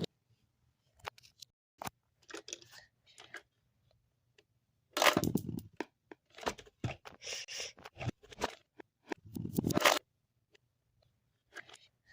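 Irregular handling noise: crinkling and scraping with sharp clicks, louder about five seconds in and again about nine seconds in.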